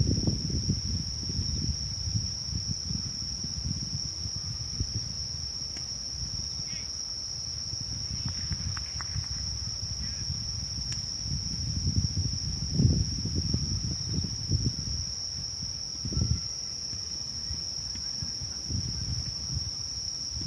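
Crickets trilling in one steady, unbroken high-pitched chorus, over a low gusting rumble of wind buffeting the microphone that swells about two-thirds of the way through.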